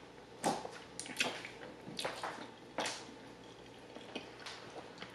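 Close-miked wet chewing and lip smacks of a mouthful of saucy spaghetti: a string of short, irregular squishy clicks.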